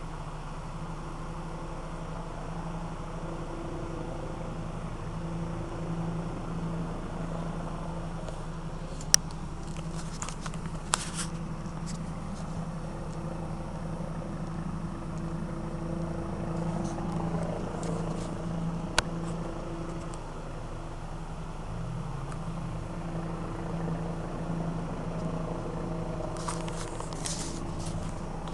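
Helicopter droning steadily with a pulsing hum, broken by a few sharp clicks.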